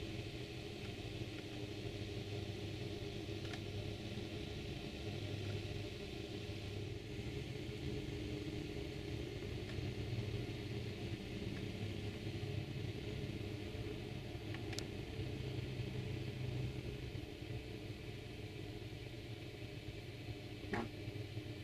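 Road vacuum sweeper running with a steady engine and suction-fan drone, with a short sharp sound near the end.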